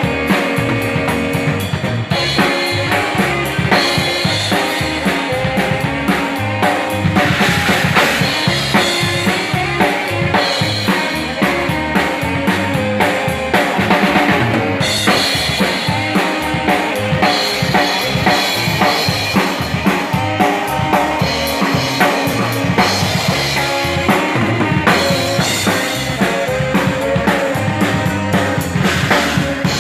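A live Texas Czech dance band playing, with a steady drum-kit beat under held notes from the band.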